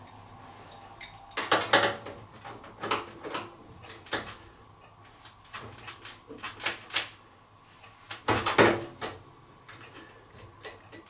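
Adjustable wrench clinking and tapping against a washing machine's steel transit bolt and back panel as the bolt is loosened and turned out, in irregular metallic clicks with a louder burst about eight seconds in.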